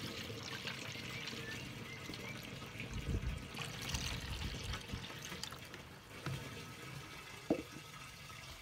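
Dyed water poured from a plastic measuring jug through a plastic funnel into a plastic jerry can holding petrol: a steady trickling pour that fades away about six seconds in, with a few low bumps midway.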